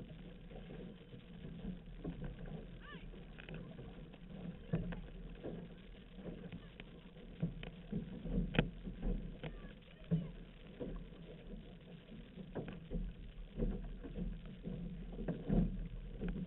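Outrigger canoe under way: water splashing and rushing along the hull with irregular paddle strokes and knocks, over a low wind rumble on the microphone.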